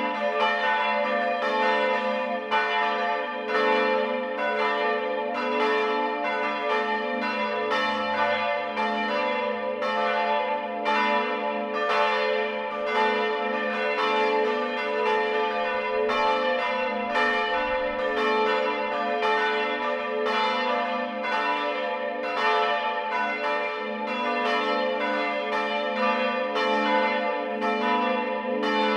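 Church tower bells ringing together in a peal (Glockengeläut), their strikes coming about once a second and overlapping while the tones ring on steadily underneath.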